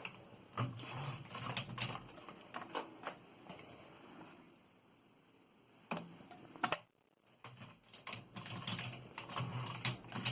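1927 Continental Standard manual typewriter being typed on: keys strike in an uneven string of clicks and pause about halfway through. Two louder knocks follow, then the keystrokes pick up again into a quick, even run near the end.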